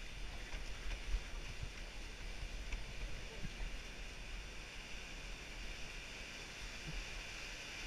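Rushing whitewater churning around a kayak running a rapid, a steady hiss of water with a low rumble of wind on the boat-mounted microphone and a couple of brief knocks about a second in.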